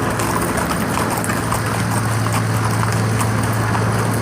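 Hooves clattering on pavement as livestock pass, over a steady engine hum.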